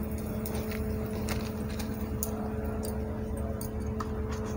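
A pinch of asafoetida frying in a little hot oil in a nonstick pan, giving faint scattered crackles over a steady background hum with a low rumble.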